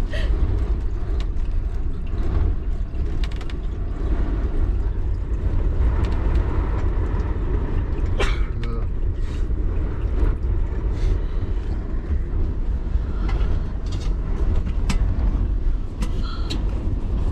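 Storm-force blizzard wind buffeting a campervan: a heavy, gusting low rumble, with scattered sharp knocks from the van's body as it is shaken.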